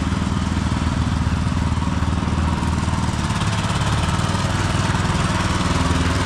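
A small engine running steadily at an even, unchanging speed.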